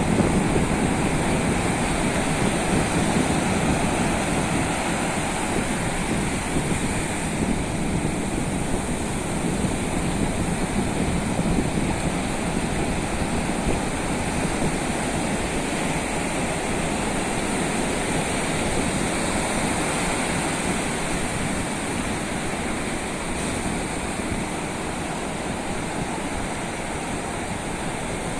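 Ocean surf breaking and washing up a sandy beach: a steady, even rushing noise.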